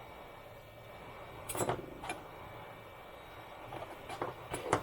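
A few light clicks and taps of a small hand tool working at the glued plastic housing of a tiny action camera. There is a small cluster about a second and a half in, and more near the end.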